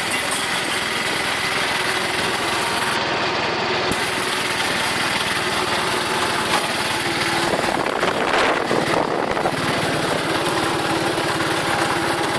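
Auto rickshaw's small engine running steadily on the move, with a brief louder stretch about eight seconds in.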